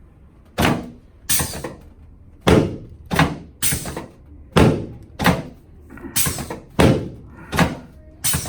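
Chiropractic drop table's section dropping again and again under the thrusts of a sacroiliac joint adjustment, about a dozen sharp clacks at uneven intervals, each ringing briefly.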